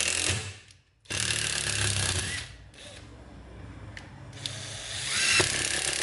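A 12V cordless impact driver hammering screws into a wooden board in bursts. It stops about half a second in, starts again after a short gap, then runs quieter for a couple of seconds before hammering loudly again near the end.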